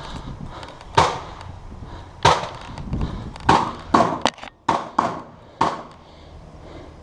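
Airsoft guns firing single shots: about eight sharp cracks at uneven intervals, several coming in quick succession around the middle.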